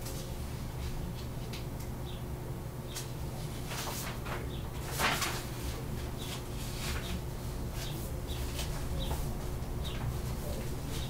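Dry-erase marker squeaking and scratching on a whiteboard in short writing strokes, the loudest about five seconds in, over a low steady room hum.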